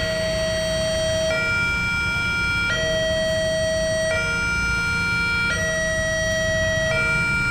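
Electronic level-crossing warning alarm sounding a two-tone signal that switches pitch about every second and a half, warning that a train is approaching. A low rumble of idling road traffic runs underneath.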